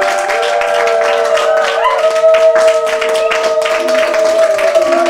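A small group clapping over music with long held notes.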